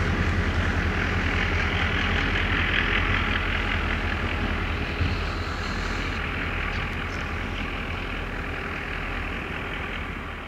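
Diesel locomotive, an SŽ class 664 with an EMD two-stroke engine, running with a deep, steady engine drone that slowly fades as it moves away.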